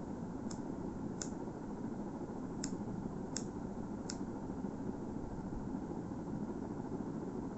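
A lighter clicked five times in about four seconds while lighting a cigarette, over steady background noise.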